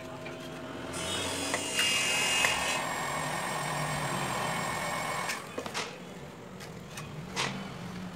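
Handheld heat gun blowing hot air onto a smartphone's screen to soften the display adhesive: a steady hiss with a faint whine that switches on about a second in and cuts off about four seconds later. A few light knocks follow as the phone is handled.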